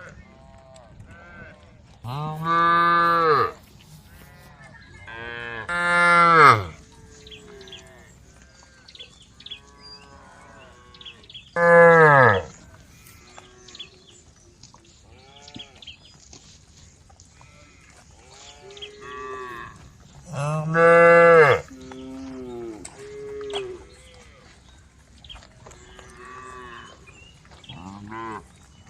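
A herd of cows mooing: four loud, drawn-out moos, with many fainter, shorter calls in between.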